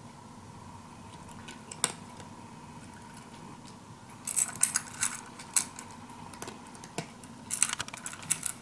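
Cat eating dry kibble from a bowl: irregular clusters of sharp crunches and clicks of food against the dish, over a steady hum.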